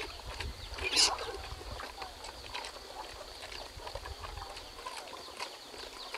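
Faint farmyard ambience: scattered small animal sounds with one short, high-pitched call about a second in, over a steady high hiss and a low rumble.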